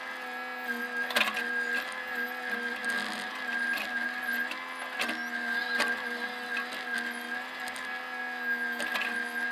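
Bobcat mini excavator's engine running steadily while digging, heard from the operator's cab, with a steady high whine over it. A few sharp knocks come from the machine as it works.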